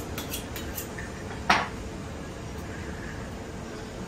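A chef's knife working on a fish: a few light clicks about four a second at first, then one sharp knock about one and a half seconds in, over a steady low background hum.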